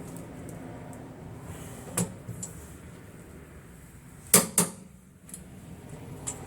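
A few sharp metallic clicks from a torque wrench on the control-arm bolts as the torque is checked. The loudest are two clicks close together about four and a half seconds in.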